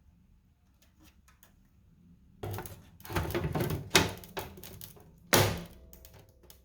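Hard objects being handled: a few faint clicks, then a run of clattering knocks and scrapes, with one sharp click partway through and another loud knock near the end.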